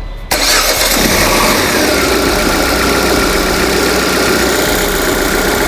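PSA 2.0 EW10A four-cylinder petrol engine idling steadily, with a whine that drops slightly in pitch and then holds. The engine has a new valve cover with its built-in oil-separator diaphragm, so this is its normal running sound, free of the annoying noise the torn diaphragm made.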